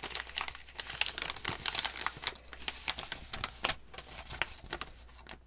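A sheet of paper being handled, crinkled and folded, with a dense run of sharp crackles and rustles that dies away near the end.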